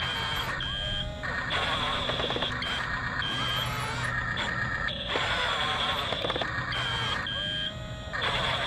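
Double E 579 RC bulldozer's small electric drive motors and gearboxes whining as it drives and dozes. A high steady whine stops and starts every second or so, and the pitch rises as the motors speed up, shortly after the start and again near the end.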